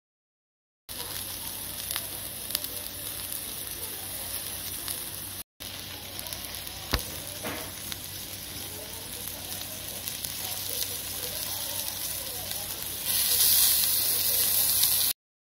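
Offal (horumon) and meat sizzling on a hot griddle while chopsticks stir them: a steady frying hiss. It breaks off for a moment about five seconds in and is louder for the last two seconds.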